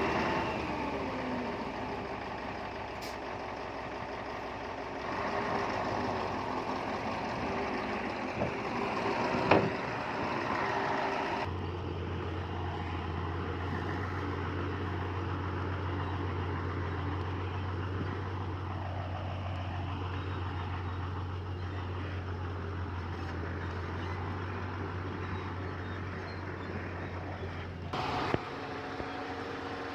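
Heavy diesel engines of earthmoving machinery (bulldozer and dump trucks) running steadily, with one sharp knock about ten seconds in. The sound changes abruptly about a third of the way in, and again near the end, when a steady low hum drops away.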